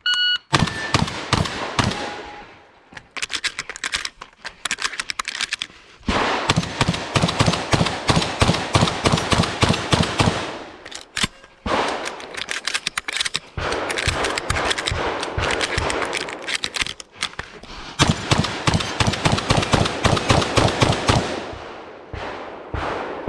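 Shot timer beeps once, then a shotgun fires a long run of rapid shots in several strings, about four a second at the fastest, with short breaks between strings.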